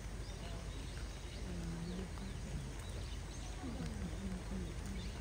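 Faint, indistinct human voices in the background, with a couple of short bursts of talk, over steady outdoor background noise and a few faint bird chirps.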